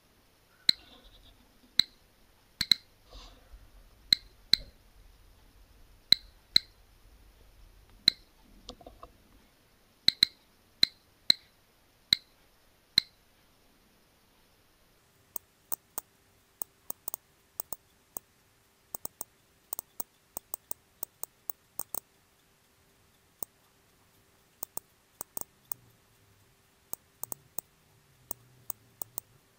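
GQ GMC-320 Plus Geiger counter clicking at random intervals, each click a count from the gamma and beta radiation of uranium-doped glass marbles. At first the clicks come about once a second. About halfway through they turn thinner and come several a second, because the playback is sped up.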